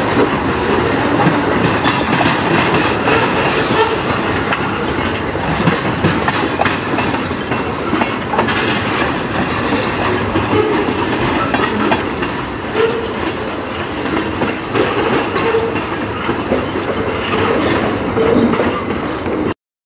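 Freight train of tank cars and covered hoppers rolling past, its wheels clacking over the rail joints under a steady rumble, with some high-pitched wheel squeal in the middle. The sound cuts off abruptly near the end.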